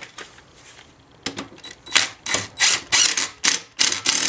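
DeWalt cordless impact driver run in short, loud trigger bursts, about three a second, starting about two seconds in, tightening the bolt that holds a new lawnmower blade.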